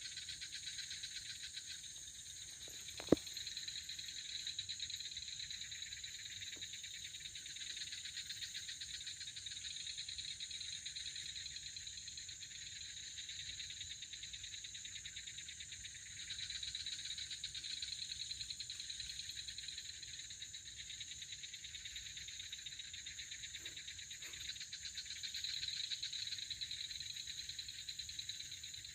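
Night insect chorus of crickets trilling steadily in high, rapidly pulsing tones, swelling a little at times. There is a single sharp click about three seconds in.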